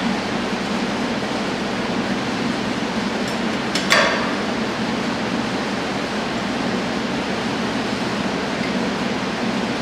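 Steady workshop background noise, with one sharp knock about four seconds in from hand work on the car's front suspension underneath.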